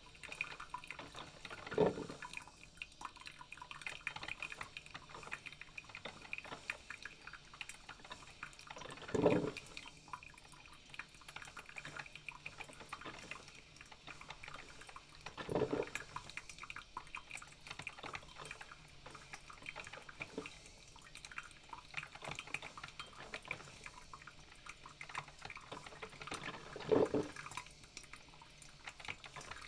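Coffee maker brewing: a steady fizzy trickle of dripping liquid, with a louder gurgle four times at irregular intervals.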